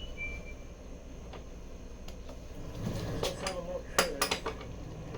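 Metallic clinks and knocks of tools and parts being handled, a few separate hits with the loudest about four seconds in, with a voice faintly in the background.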